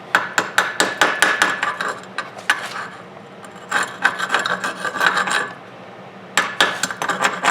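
Chipping hammer tapping and scraping flux slag off a 6013 stick-weld bead on steel, in several bursts of quick metallic taps with short pauses between.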